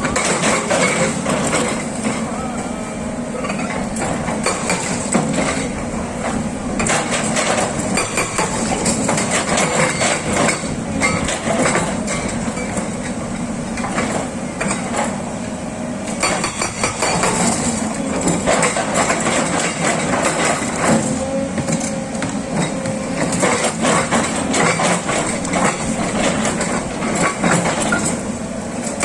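Hydraulic rock breaker on a SANY excavator hammering rock with rapid blows, in spells with short pauses between them, over the steady sound of the excavator's engine.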